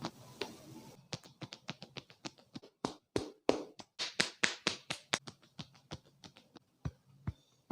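A rapid, uneven run of hand taps and slaps during a head massage, about five strikes a second, beginning about a second in and loudest in the middle.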